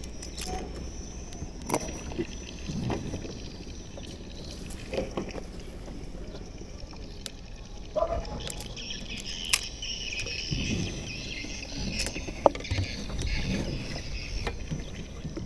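Water lapping at the hull of a small wooden boat, with scattered light knocks and clicks.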